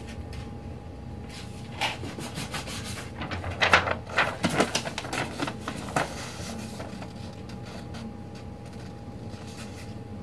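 Scissors cutting paper: a run of short snips and paper rustling from about two to seven seconds in, then only a faint steady hum.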